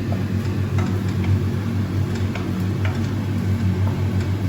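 Onions frying in oil in a pan, over a steady low hum from the kitchen, with a few light scattered clicks.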